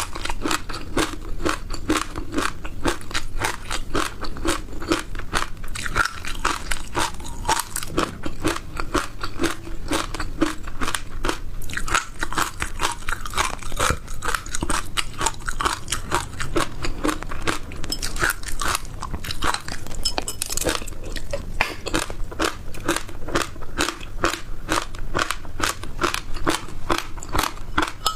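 Close-miked crunching and chewing of dry passion fruit seeds: steady, rapid crunches, several a second, without a break.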